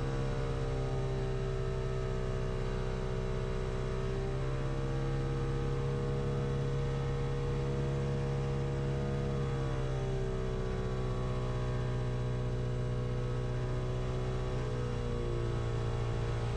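Lake Buccaneer's 200 hp Lycoming engine and pusher propeller running steadily in flight, a low, even drone whose pitch shifts slightly a few times.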